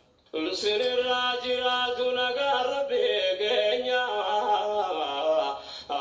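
A man's voice chanting unaccompanied in long, wavering held notes, after a brief silent break right at the start.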